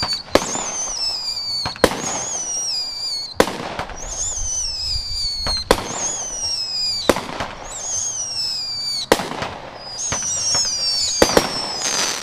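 Flashing Fireworks' "Friggin Crickets" firework firing shot after shot, about one every second and a half, each sharp report followed by a whistle falling in pitch for about a second. Near the end two shots go off almost together.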